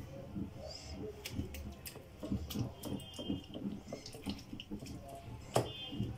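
Wet squelching of a silicone spatula working thick yogurt marinade over a whole chicken in a glass bowl, with scattered light clicks of the spatula against the glass.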